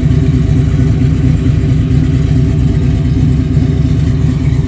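Classic muscle car exhaust of an early-1970s Chevrolet Chevelle running alongside, a loud, steady, choppy deep rumble with no revving.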